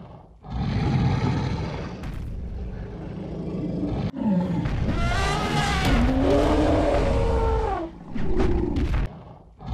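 Animal roar sound effects for an animated woolly mammoth: a rough rumbling growl, then from about four seconds in a long roaring call that wavers in pitch, and a shorter call near the end.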